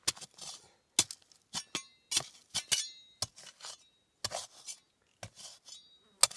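Metal blade of a short-handled spade striking and scraping stony dirt inside a narrow dig hole: a string of irregular sharp chinks, two or three a second, some ringing briefly. The ground is being broken away carefully around the sides of a buried target.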